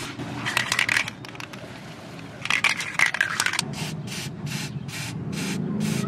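Aerosol chain lube sprayed in short hissing bursts through a straw nozzle onto a motorcycle drive chain, twice, over a regular ticking of about two to three clicks a second.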